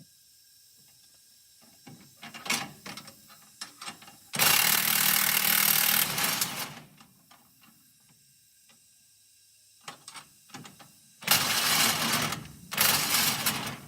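Power tool running in three loud bursts, the first lasting about two seconds and the last two short and close together, with scattered metallic clinks of parts and hand tools in between, during work on a car's front brake assembly.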